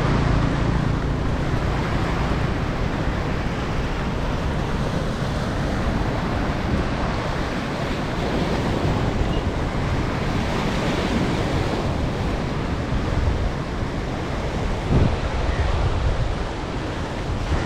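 Steady rush of wind and water, with wind buffeting the microphone. There is a single dull knock about fifteen seconds in.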